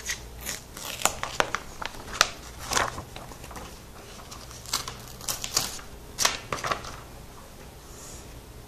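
Protective plastic film being peeled off a laptop screen and handled: an irregular scatter of crackles and small clicks that thins out after about seven seconds.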